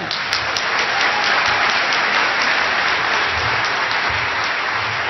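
Audience applauding: many people clapping together, breaking out at once and holding steady.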